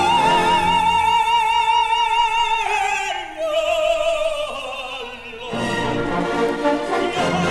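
Operatic soprano and tenor duet with orchestra, from a 1955 live recording transferred from vinyl LP. A high note with wide vibrato is held for about two and a half seconds, a softer sung passage follows, and the full orchestra comes back in loudly about five and a half seconds in.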